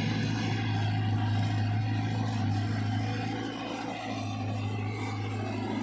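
Caterpillar 320 GC excavator's diesel engine running steadily under work, a deep even drone that eases slightly about halfway through.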